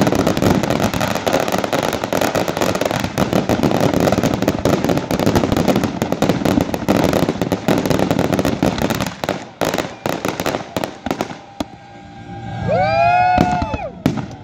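A consumer fireworks cake firing at ground level, with dense, continuous crackling and popping that thins to scattered pops after about nine seconds. Near the end a voice gives one long whoop that rises and falls in pitch.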